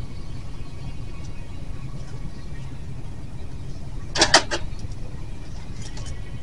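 Steady low background hum, with a brief cluster of sharp crackles about four seconds in as plastic-wrapped grocery packages are pulled off a low shelf and handled.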